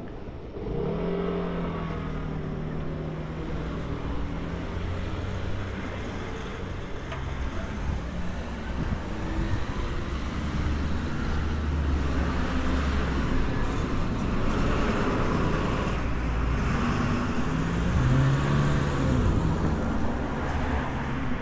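City street traffic: cars driving past close by over a steady road rumble, with a vehicle's engine note swelling about a second in and again near the end.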